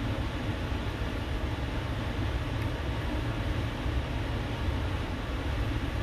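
Steady low rumble with an even hiss over it, unchanging throughout: constant background noise with no distinct events.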